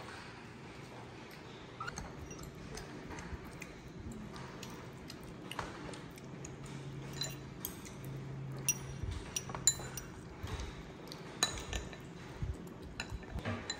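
Small metal spoon clinking and tapping against a dish as a baby monkey eats: scattered light clinks, sharper and more frequent in the second half.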